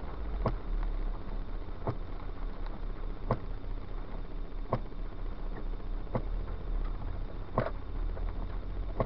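Windshield wipers running in the rain, a knock about every second and a half as the wiper reaches the end of its stroke, over the low steady rumble of the car heard from inside the cabin.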